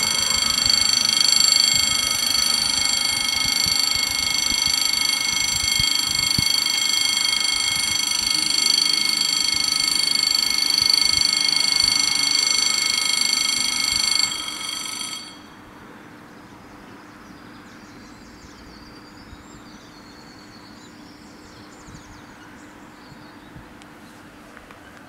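Two level-crossing bells sound a shrill, steady ringing, the warning of an approaching train. They stop about fifteen seconds in, one about a second before the other, leaving only a faint background.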